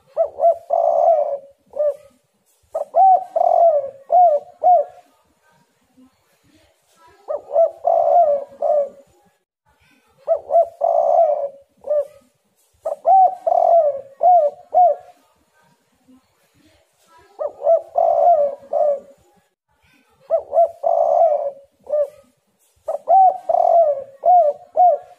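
Spotted dove (tekukur) cooing in full song: repeated phrases of several arched coos, about eight phrases with short pauses between them.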